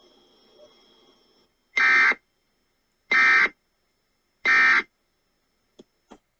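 Emergency Alert System end-of-message (EOM) signal: three identical short, harsh digital data bursts about a second and a quarter apart, marking the end of the alert. Before them a faint high whine stops about a second and a half in, and two faint clicks come near the end.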